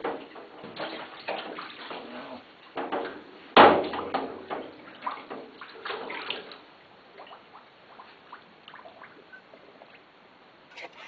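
Water sloshing and splashing as rubber milking-machine hoses are worked through a tub of sanitizing solution, with one loud, sudden hit about three and a half seconds in. The splashing thins out over the last few seconds.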